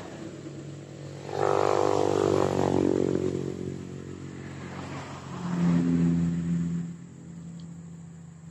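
A motor vehicle's engine passing close by. It comes in suddenly about a second in with a falling pitch as it goes past, swells again for a second or two about five seconds in, then fades.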